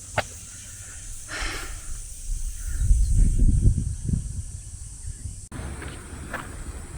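Outdoor street noise: a low rumble swells up about two seconds in and fades after a couple of seconds, over a steady high hiss, with a single click near the start.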